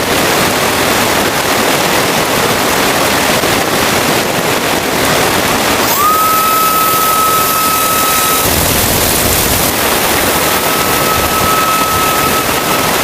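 Heavy rain falling, a steady loud hiss. About halfway through a thin, steady high tone rises in and holds for a couple of seconds, then comes back more faintly near the end.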